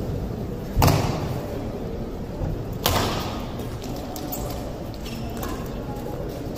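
Badminton rackets striking the shuttlecock during a rally: two sharp hits about two seconds apart, each ringing on in the hall's echo, with another hit right at the end.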